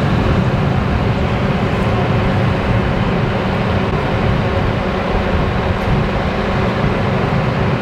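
Loud, steady rushing noise with a strong low rumble, starting and stopping abruptly.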